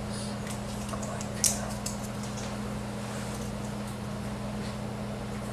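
Small clicks and rustles of a clear plastic piece handled by fingers close to the microphone, with one sharp click about a second and a half in, over a steady low hum.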